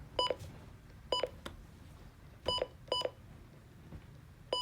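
Four short electronic beeps from a device, irregularly spaced, each a brief pitched tone over a low background hum.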